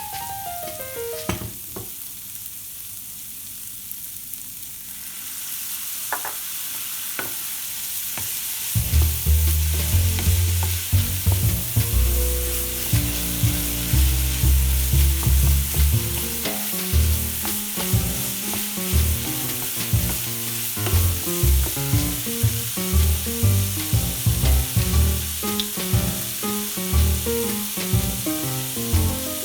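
Food sizzling in a hot frying pan, the hiss growing louder about five seconds in, with a few sharp knocks near the start. Background music with a bass line comes in about nine seconds in.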